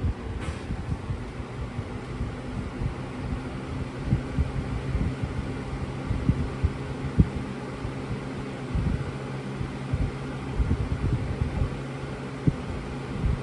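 Lasko Cool Colors B20310 box fan running on its low speed: a steady motor hum with irregular low buffeting.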